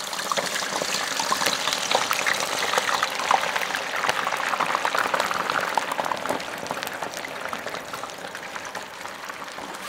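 Potatoes frying into fries in hot oil: a steady sizzle thick with small crackles and pops, easing a little toward the end.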